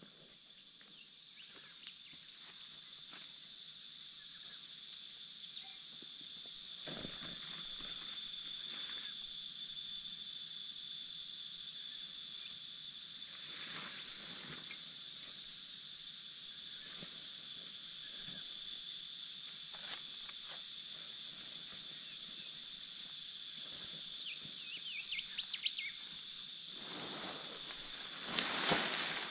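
A steady, high-pitched drone of an insect chorus that swells over the first few seconds, with faint knocks now and then and a louder rustle near the end.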